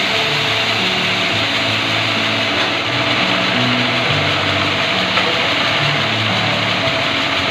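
Sawmill machinery running steadily: engine and saw making a dense, even noise.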